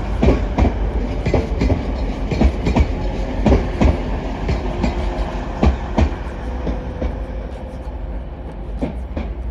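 Class 185 diesel multiple unit running through the station as empty stock: a steady low rumble with its wheels clicking irregularly over the rail joints and pointwork, easing off a little near the end.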